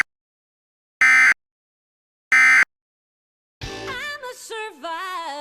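Three short bursts of EAS end-of-message data tones, the buzzy digital SAME code, about a second and a quarter apart with dead silence between them. Then, about three and a half seconds in, music with a singing voice starts.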